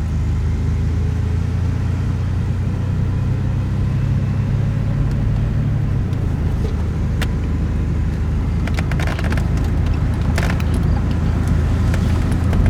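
Chevy S10 pickup's engine running at a high idle from inside the cab, a steady low drone, as the truck creeps forward with no brake or throttle applied. The owner says it sits at about 1500 RPM and drives the truck by itself. A few light clicks come about seven to eleven seconds in.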